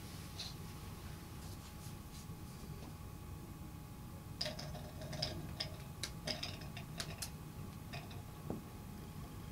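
Irregular light clicks and taps, about a dozen over four seconds starting a few seconds in, as something is put into a glass display vase, over a steady low hum.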